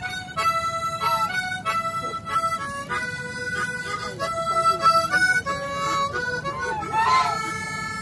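A harmonica playing a slow solo melody of held notes that step from pitch to pitch. A goose gives one short honk about seven seconds in.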